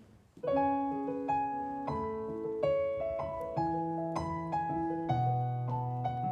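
Piano playing the slow intro of a ballad: sustained chords that change every half-second or so, starting about half a second in, with lower bass notes joining after a few seconds.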